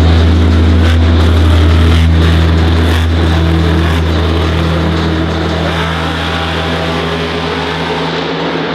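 Monster truck's supercharged V8 engine running with a deep, steady drone, easing off somewhat after about three seconds.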